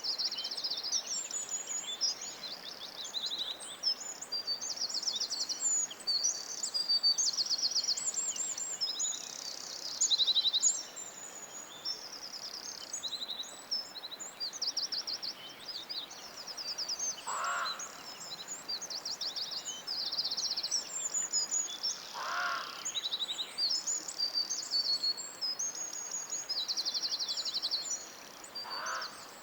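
Several songbirds singing at once in a dense, continuous chorus of high, rapid trills and chirps. A lower call sounds three times, in the second half.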